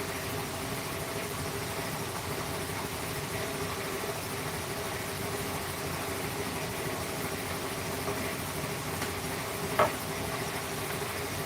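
A motor running steadily with a constant hum and hiss, and one sharp knock near the end.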